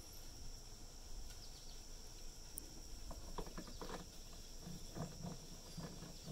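Faint steady high trilling of insects in the background, with soft irregular clicks and taps from about three seconds in as a short antenna is hand-threaded onto its mounting base on the truck.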